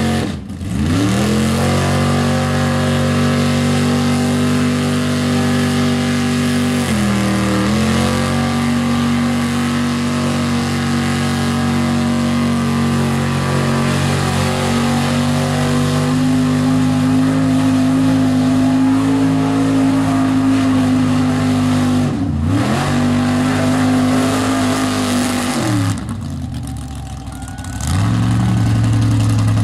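Mud truck engine held at high revs while its tyres spin in deep mud. The revs drop and climb back a few times, with a longer lull near the end before it revs up again.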